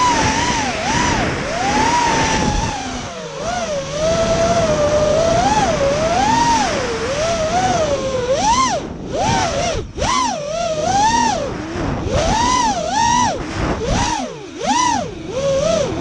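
Racing quadcopter's brushless motors and propellers whining, heard from a camera on board the drone. The pitch rises and falls constantly with the throttle, with short throttle cuts about nine, ten and fourteen and a half seconds in.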